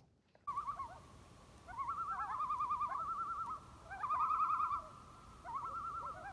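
A bird's rapid wavering trill, given again and again in phrases of about a second each.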